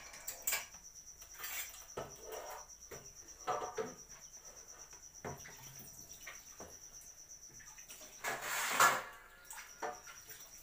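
Crickets chirping steadily in a high, thin drone, with scattered light clinks of kitchen utensils on a counter and a louder clatter lasting under a second about eight seconds in.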